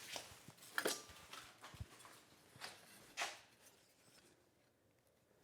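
A few soft knocks and short scrapes of a hickory hammer handle and hand tools being handled, dying away to quiet after about three seconds.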